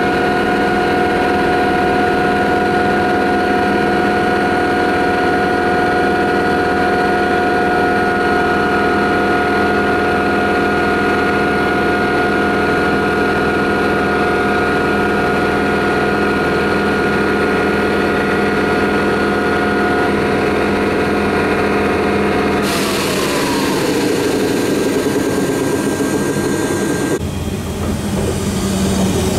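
SNCF BB 22200 electric locomotive standing at the platform, its cooling fans and electrical equipment running with a steady, many-toned whine; a little over 20 s in the whine falls in pitch. Near the end the sound switches to a double-deck commuter electric train coming into the station.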